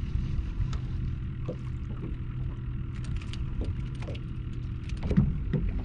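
Spinning reel being cranked in quick small ticks as a speckled trout on a float rig is reeled in and swung aboard, over a steady low rumble, with a single knock about five seconds in.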